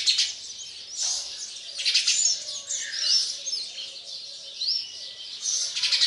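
Small birds chirping and calling in bursts, with several short whistled notes that bend up and down between the bursts.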